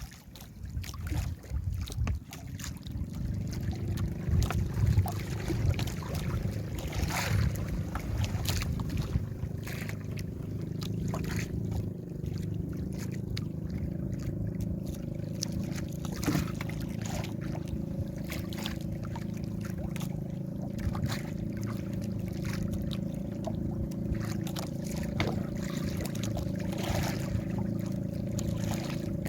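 A small fishing boat's engine runs steadily with an even hum, with scattered knocks over it. In the first few seconds wind gusts buffet the microphone.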